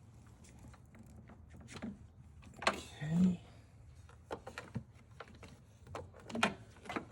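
Scattered clicks and knocks of plastic and metal parts being handled while reassembling a car headlight, the loudest a short cluster about three seconds in.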